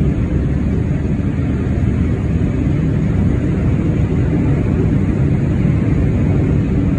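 Jet dragster engines running, a loud, steady rumble with no rise or fall.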